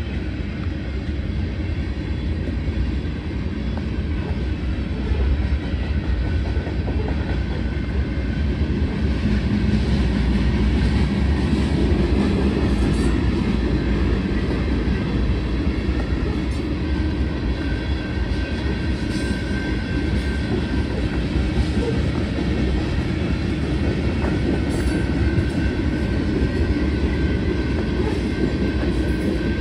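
Freight train of covered hopper cars rolling past: a steady low rumble of wheels on rail, a little louder from about five seconds in, with a few sharp clicks.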